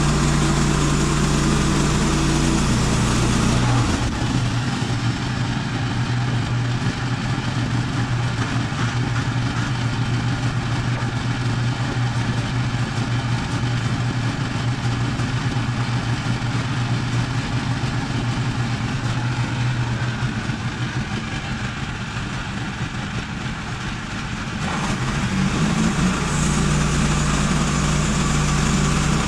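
Gas engine of a portable band sawmill running steadily. About three seconds in, its pitch drops and a rough, noisy sound layers over it as it works under load through a cut. Near the end it picks back up to its earlier, higher pitch as the load comes off.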